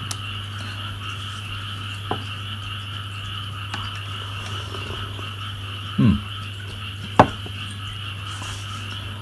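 A steady chorus of frogs croaking in the background. A few light knocks sound over it, the sharpest about seven seconds in.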